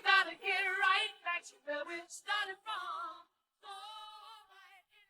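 Isolated female disco vocals without any instruments, the lead and backing voices singing short phrases with wavering, vibrato-laden held notes, fading out to nothing near the end.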